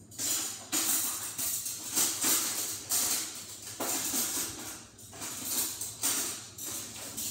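Metal cutlery jingling and clattering as someone rummages through a kitchen drawer for spoons, in irregular bursts.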